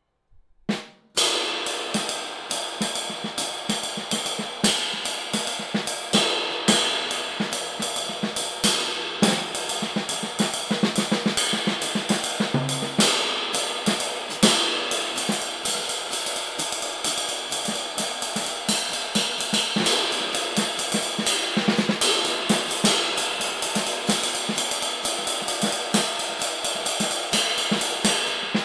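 A 22-inch lathed cymbal weighing 2455 grams is played with sticks in a steady stream of strokes, its shimmering wash building and sustaining throughout. The playing begins about a second in.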